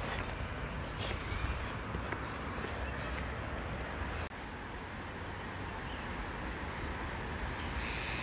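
Steady high-pitched shrilling of insects, growing louder about four seconds in.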